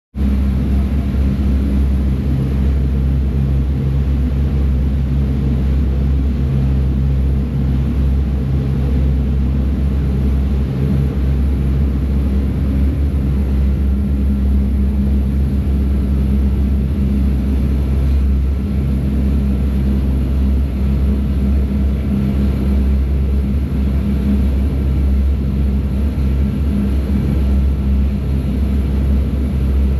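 A ferry's engine running with a steady low drone, under the rush of water churning past the hull.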